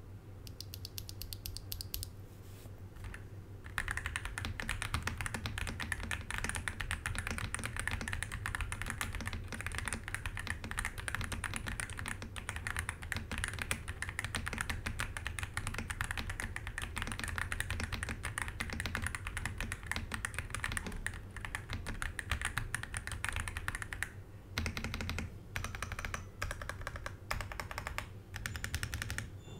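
Typing sound test on a Monka 3098 Pro V2 gasket-mounted mechanical keyboard with a polycarbonate plate and double-shot PBT Cherry-profile keycaps. A few scattered keystrokes come first. About four seconds in, rapid continuous typing begins, and it breaks into shorter bursts with pauses near the end.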